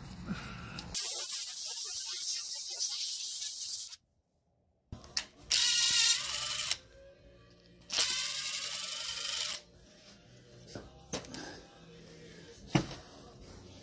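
Three long, loud hissing blasts from a pressurised nozzle cleaning a lawn mower carburetor, the second and third with a wavering whistle in them. A few small clicks and a sharper knock follow near the end.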